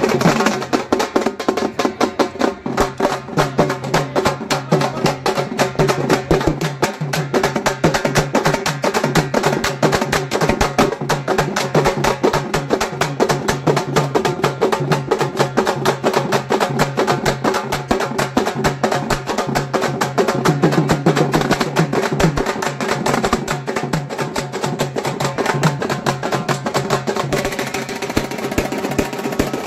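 Dhol-tasha drumming: large stick-beaten dhol drums and tasha drums played fast and without a break, with a steady held tone underneath.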